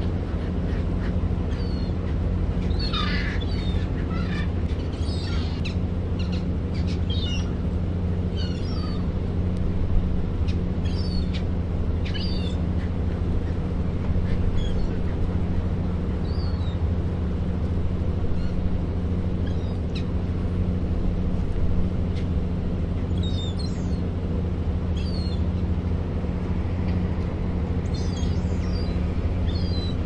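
Gulls giving short, high calls, many in quick succession through the first half and again near the end, over a steady low rumble.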